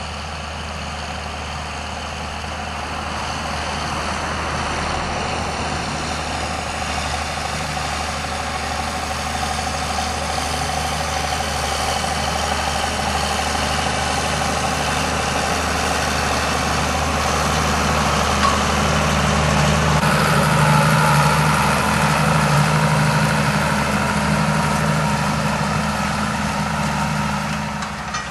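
Ford 8340 tractor's diesel engine running steadily, gradually getting louder, with a change in its tone about twenty seconds in.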